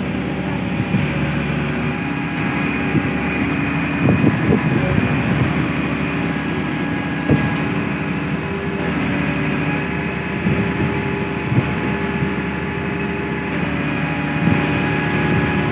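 Ship's deck crane machinery running with a steady hum while its control levers are worked. The tones step up and down as the crane is moved, with a few short knocks.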